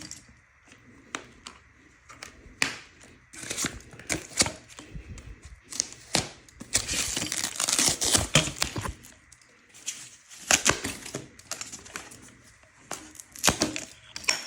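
Packaging being handled during an unboxing: irregular rustling and crinkling with many sharp clicks and knocks, and a longer, louder stretch of tearing and crinkling about seven to nine seconds in.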